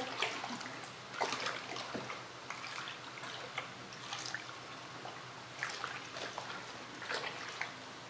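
Long wooden spoon stirring a large plastic tub of foamy liquid soap mixture, the liquid sloshing and splashing in uneven strokes.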